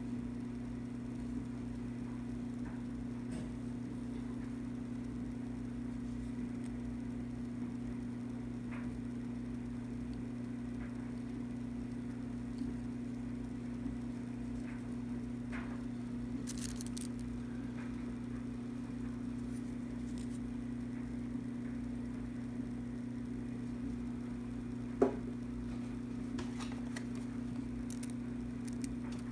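Steady low electrical-sounding hum, with a few faint scattered clicks and rustles and one sharper click near the end.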